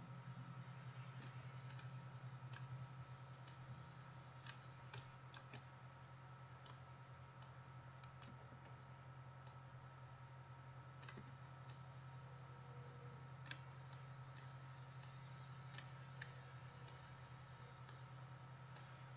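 Faint, irregular computer mouse clicks, about one every second or so, over a steady low hum.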